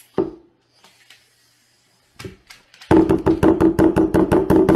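Fist or hand rapidly pounding a tabletop, about seven knocks a second, starting about three seconds in after a few single knocks, to slide a banknote out from under an upside-down glass bottle.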